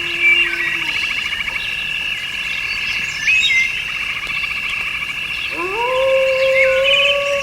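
A steady high chorus of chirping insects, with short bird chirps a few times. About two-thirds of the way in, a long low call glides up in pitch and holds.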